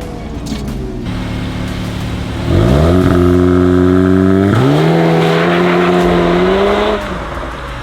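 2022 VW Golf R Mk8's turbocharged four-cylinder engine and exhaust under hard acceleration. The revs rise sharply about two and a half seconds in, dip at a gear change, climb again, then fall away near the end.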